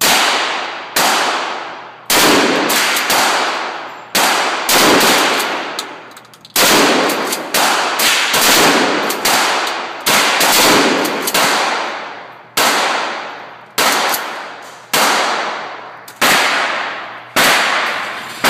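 Shotgun fired in rapid succession, about twenty shots at roughly one a second, some in quick pairs, each blast dying away over about a second.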